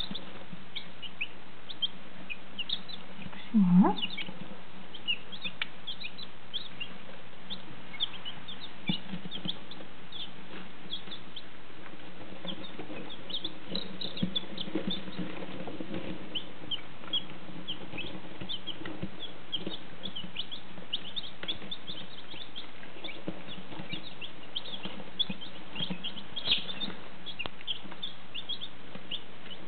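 A brood of one- and two-day-old chicks peeping continuously: many short, high, falling peeps overlapping, over a steady low hum. One louder, lower call rises in pitch about four seconds in.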